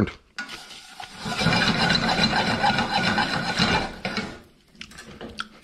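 Spatula scraping and pushing breadcrumbs around a hot pan of bacon fat: a steady rasping scrape from about a second in to about four seconds in, then a few lighter scrapes.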